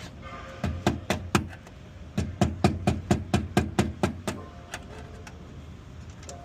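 Hammer blows on a hard surface during installation work: a few strikes, then a fast run of about a dozen at roughly four or five a second, then a couple of lighter taps.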